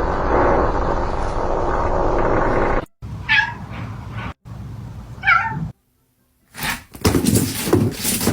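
Cat meowing: two short meows in the middle, each bending in pitch. Before them comes a dense, noisy cat sound, and after them a brief silence and a burst of noise, split by abrupt cuts.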